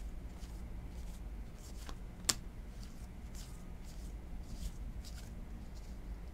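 Baseball trading cards being flipped through by hand, the card stock sliding and flicking against the stack in soft swishes, with one sharp click a little over two seconds in.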